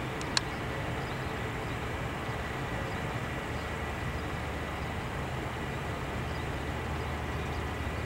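Four Allison T56 turboprop engines of a P-3C Orion running on the runway, heard from a distance as a steady low drone with a faint high whine. A single sharp click about half a second in.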